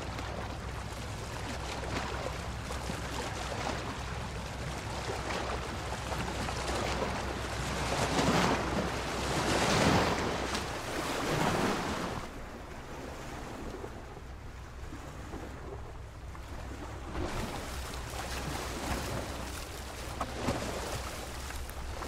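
Ocean surf, waves breaking and washing ashore over a steady low rumble. A few louder breakers swell up a little before the middle, then the wash eases off for a while before building again.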